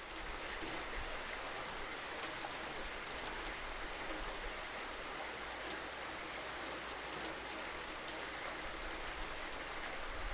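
Steady rainfall: an even hiss of many drops that holds at the same level throughout.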